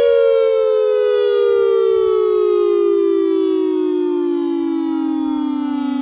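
Federal Signal Modulator 8032B outdoor warning siren winding down after the signal is cancelled. It is loud, and its pitch slides steadily lower.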